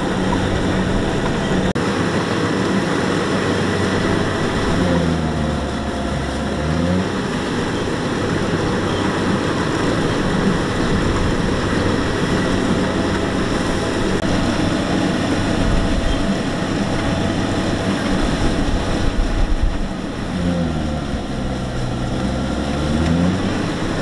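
Kubota combine harvester's diesel engine and threshing machinery running steadily under load while harvesting rice, the engine pitch sagging and recovering twice.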